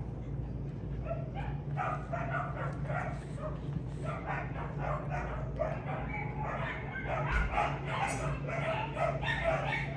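Dogs barking repeatedly, several short barks a second, growing busier in the second half. A steady low electrical hum runs underneath.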